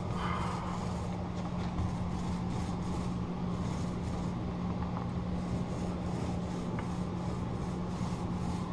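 Small paint roller being worked back and forth over a door's rails, giving faint rubbing strokes over a steady low hum.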